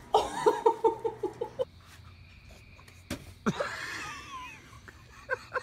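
A rapid run of high-pitched laughter, about six bursts a second, cut off after a second and a half. Later comes a sharp click, then a short sliding voice-like sound.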